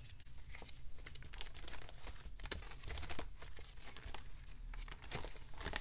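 Thin plastic crinkling and rustling as merchandise in plastic packaging is handled, with many small crackles and clicks.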